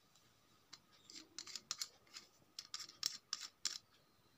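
Threaded metal end cap of a cordless beard trimmer being unscrewed by hand in short twists, the threads giving a quick run of about ten faint scrapes.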